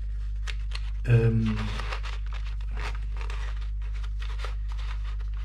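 Paper crinkling with small clicks and scrapes as a gauge pointer is lifted and twisted off an instrument cluster, with a short vocal sound about a second in, over a steady low electrical hum.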